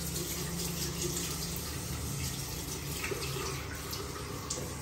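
Bathroom tap running steadily into a washbasin, with light splashing as hands scoop water to wash a face.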